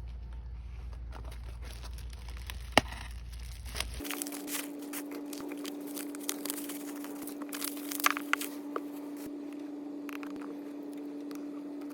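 Smartphone packaging being handled and opened: plastic and paper crinkling and tearing with scattered sharp clicks, over a steady low hum.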